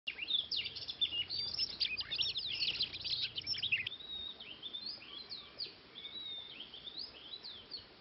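Oriental magpie-robins singing: a dense run of fast, overlapping whistles and chirps, then, after an abrupt change about four seconds in, sparser, slower whistled phrases with rising and falling notes.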